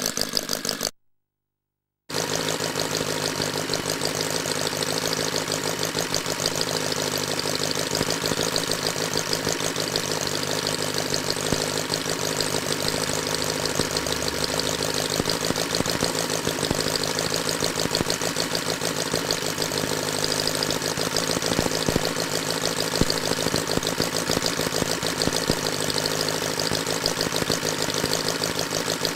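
A 25cc horizontally opposed four-stroke model engine (L C Mason's Mastiff) running steadily, with a rapid, even firing beat. A brief dead silence cuts in about a second in before the engine sound returns.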